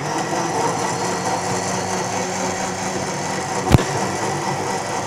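Electric countertop blender running steadily, blending meat and rice. There is one sharp knock about three-quarters of the way through.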